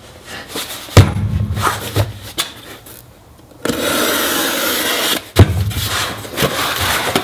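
Cardboard shipping box handled on a wooden workbench: a knock about a second in, a steady rasp of cardboard for about a second and a half midway, then the box set down with a thump.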